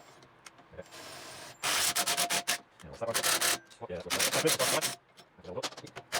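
Three loud, rasping bursts of hand-tool work, each about a second long, on a motorcycle rear shock spring and its spring compressors.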